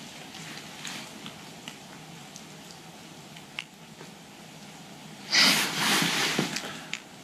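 Faint scattered clicks of a backpack's plastic buckle and strap being handled, then about five seconds in a loud hissy, breath-like noise lasting about a second and a half.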